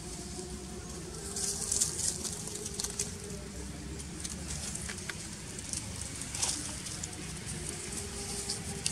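Scattered light rustling and scratching of dry leaves and dirt as a baby long-tailed macaque forages and another monkey moves past, the loudest bit about a second and a half in, over a faint steady low hum.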